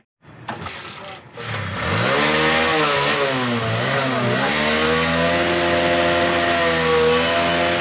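A TVS Sport motorcycle's single-cylinder four-stroke engine runs up about a second and a half in, revs up and down a few times, then settles into a steady idle. The owner says this engine's sound is not right.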